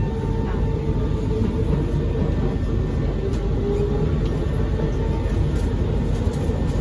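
Kawasaki C151 metro train heard from inside a passenger car as it pulls out of a station: a steady running rumble with a faint held tone above it.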